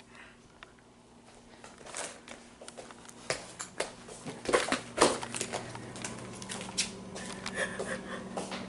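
Footsteps and handling noise as someone walks across a wooden and then a tiled floor: irregular soft knocks, clicks and rustles, sparse at first and more frequent from about two seconds in, over a faint steady low hum.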